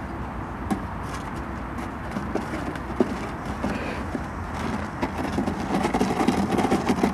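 Cardboard box being pushed and dragged over gravelly dirt ground: a few knocks, then a rough, rasping scrape that grows denser and louder over the last couple of seconds.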